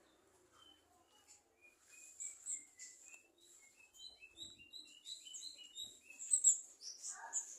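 Several small wild birds chirping in a tree, a quick series of short, high notes that thickens and grows louder from about two seconds in, with a lower call near the end.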